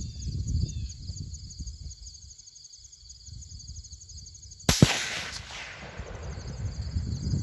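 A single rifle shot about halfway through, loud and sharp, its report echoing away over about two seconds. Wind rumbles on the microphone, and insects chirp steadily and faintly in the background.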